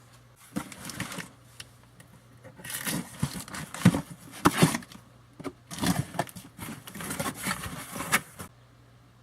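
A shipping box and its packing being opened and rummaged through: irregular rustling, crinkling and scraping with a few sharp knocks, dying away shortly before the end.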